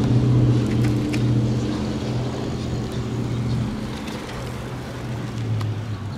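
Steady low engine hum of a nearby road vehicle, slowly fading, with a few faint clicks.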